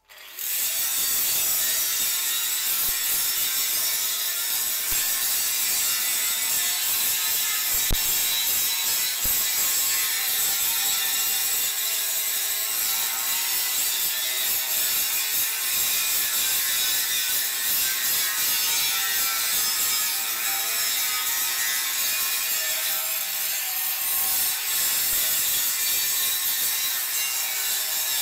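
Angle grinder grinding the inside edge of a steel tractor wheel rim, a loud, steady hiss with the grinder's motor whine, starting abruptly. It is grinding flat the rim where the old centre welds were gouged out.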